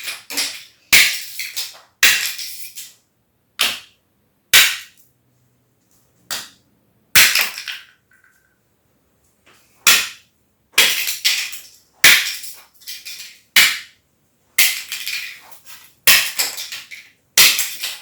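Rubber mallet knocking plastic self-levelling tile clips off a ceramic tile floor, each blow a sharp crack as a clip snaps off. More than a dozen irregular knocks, with a pause of about two seconds in the middle.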